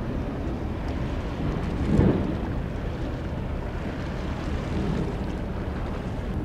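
Wind buffeting the microphone as a low, uneven rumble, with a stronger gust about two seconds in.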